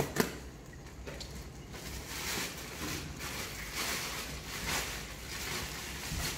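Thin plastic fish bags crinkling and rustling in irregular swells as a hand grabs and folds them over the aquarium rim, after two sharp clicks right at the start.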